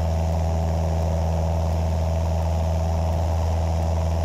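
Cessna 172's piston engine and propeller droning steadily at full power during the climb-out after a short-field takeoff.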